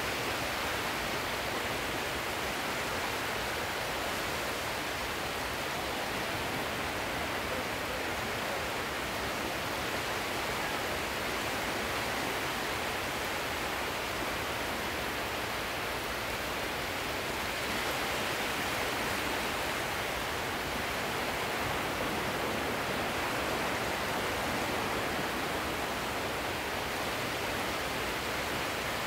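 Steady wash of sea surf, swelling and easing slowly over several seconds.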